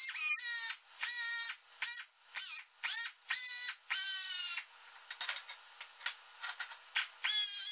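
Pneumatic die grinder with a ball-nose carbide burr, whining in short bursts, five or six in the first four and a half seconds, its pitch dipping as the burr bites. It is grinding out a crack in an aluminium propeller to prepare it for welding. After a quieter scratchy stretch, another burst comes near the end.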